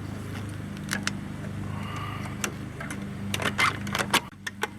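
Lawn mower engine running steadily. Over it, about three seconds in, comes a quick series of sharp metallic clicks and snaps from pliers working on the seat's hog rings.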